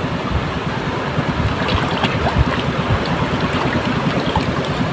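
Wind buffeting the microphone outdoors: a steady, low rumbling rush.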